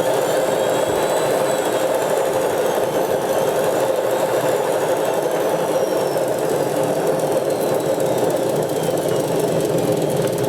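Old washing machine running on direct 240-volt mains: a loud, steady mechanical running noise with a thin motor whine that rises briefly and then slowly falls in pitch.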